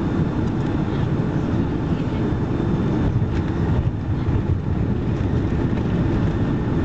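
Steady loud rumble inside the cabin of a Boeing 757-232 landing, heard from a seat over the wing: the jet engines, air rushing past and the runway noise blend into one even roar.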